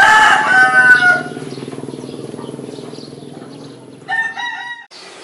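Rooster crowing: one long crow that ends about a second in, then a shorter call near the end, over a steady low hum. The sound cuts off suddenly just before the end.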